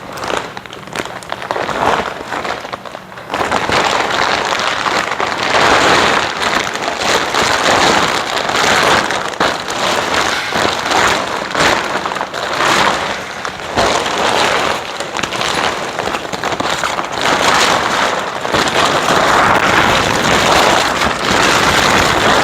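Plastic greenhouse cover rustling and crinkling as it is handled and pulled over the frame. It gets louder about three seconds in and keeps surging and easing.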